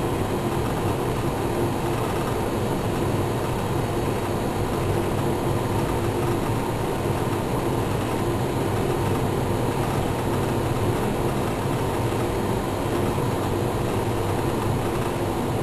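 Steady mechanical hum and whir with a low drone and a steady mid tone, unchanging throughout.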